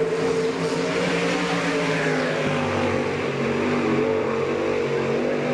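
A winged sprint car's V8 engine running hard at speed on a dirt track. It holds high revs throughout, its pitch dipping slightly and then climbing again.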